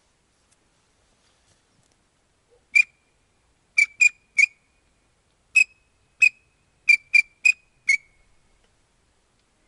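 Ten short, sharp, high whistled pips in an uneven series, starting about three seconds in and ending about eight seconds in.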